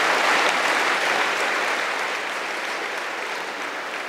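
Audience applauding, a dense steady clapping that slowly dies away over the few seconds.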